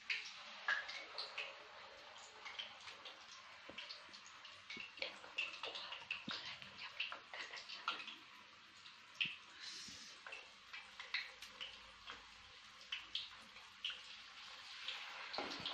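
Battered banana pieces frying in hot oil in a wok: a faint, steady sizzle with many small irregular crackles and pops.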